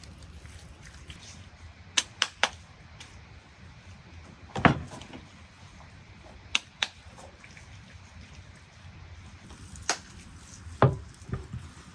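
Scattered sharp knocks and two heavier thuds, about a third of the way in and near the end, as raw lamb legs are handled and set down on a wooden board, over a low steady background noise.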